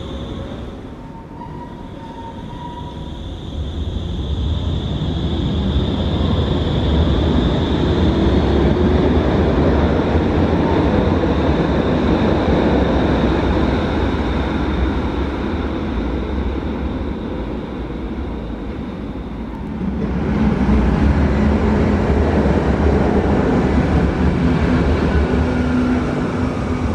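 Stadtbahn light-rail trains running through an underground station, a loud continuous rumble with a steady high whine through much of it. Twenty seconds in the sound changes abruptly, and near the end a train pulling in alongside adds a low steady motor hum.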